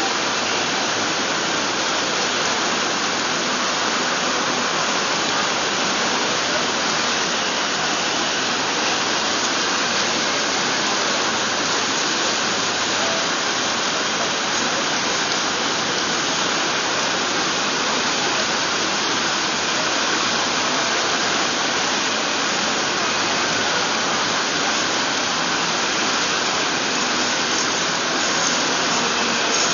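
Steady rain falling, a loud, even hiss with no breaks.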